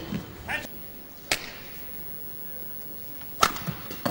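Badminton rally in an indoor hall: two sharp cracks of racket strings hitting the shuttlecock, about two seconds apart, the second one louder and near the end. Half a second in there is a brief squeak of a shoe on the court.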